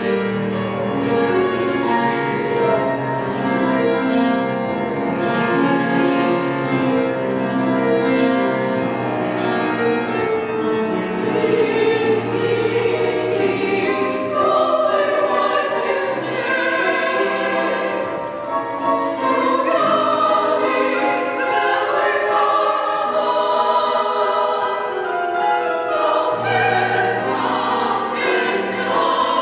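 A choir singing a choral piece in sustained, held chords.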